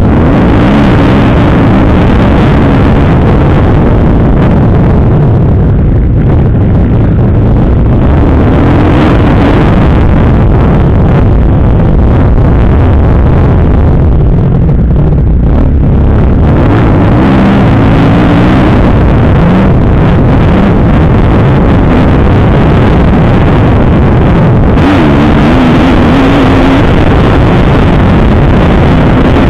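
Kawasaki KX250F four-stroke single-cylinder motocross engine, heard up close from an on-bike camera, revving up and down again and again as the bike is ridden hard around a dirt track. Loud throughout.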